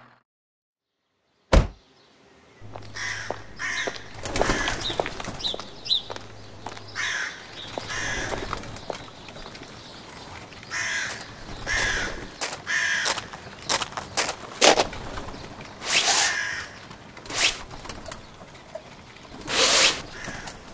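Crows cawing again and again, short caws every second or two over faint outdoor background noise. Before them, after a moment of silence, a single sharp click.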